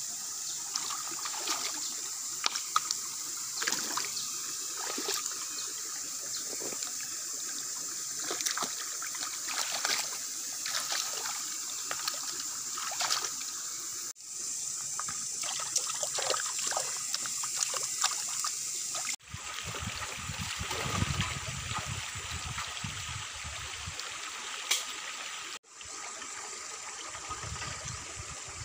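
Shallow rocky stream trickling, with many small splashes as hands work in the water. Past the middle a low rumble comes in for a few seconds and returns near the end.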